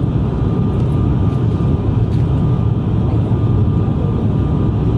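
Steady cabin drone of an ATR 72-600's twin turboprop engines and propellers in flight, heard from inside the passenger cabin. It is a heavy low rumble with a thin, steady whine above it.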